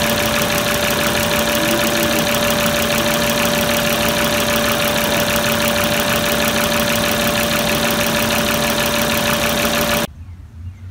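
2004 Volvo S60's 2.4-litre inline-five engine idling steadily with the A/C on, heard close up from the engine bay, with two steady whine tones over the running noise. It cuts off suddenly near the end.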